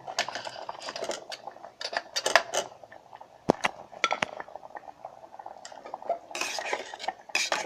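A spoon clinking and scraping against the metal pot of an electric kettle while dates are stirred into the tomato chutney mixture. It is a run of sharp, uneven clinks, the loudest about three and a half seconds in, with a denser scraping stretch near the end.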